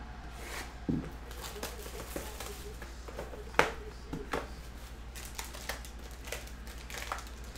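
Cardboard trading-card boxes and foil card packs being handled: crinkling foil wrappers and scattered clicks and knocks of cardboard, with a dull thump about a second in and a sharper knock about three and a half seconds in. A steady low hum runs underneath.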